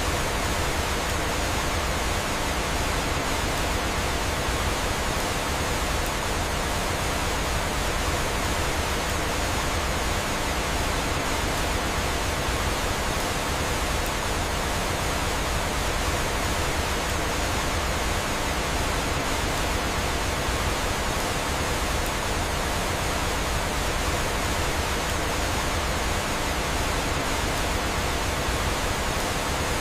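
Steady rushing of falling water, like a waterfall: an even, unbroken noise with no distinct crackles or other events.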